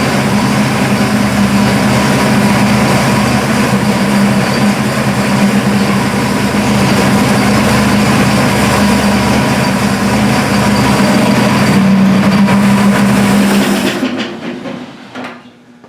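1955 Buick's 322 Nailhead V8 running steadily, without a knock now that a loose valve cover that had been hitting a rocker is tightened down. The engine is shut off about fourteen seconds in and the sound dies away.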